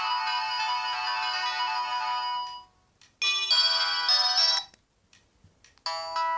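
O2 X2 mobile phone ringtones playing one after another: a tune stops about two and a half seconds in, a second tune plays briefly after a short gap, and a third starts near the end.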